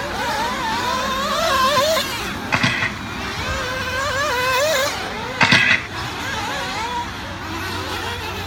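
Several nitro RC buggy engines screaming around the track, their pitch rising and falling as they accelerate and brake through the corners. Two short, louder bursts come about two and a half and five and a half seconds in.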